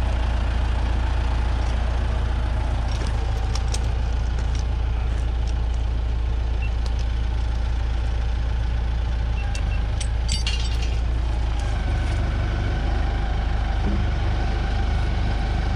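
An engine idling steadily with a heavy low rumble, with a few light clicks or knocks over it.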